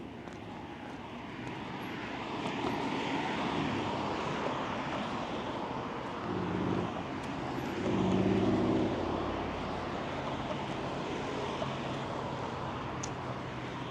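City traffic: a motor vehicle passes close with its engine loudest about eight seconds in, over a steady rush of street noise and a low engine hum.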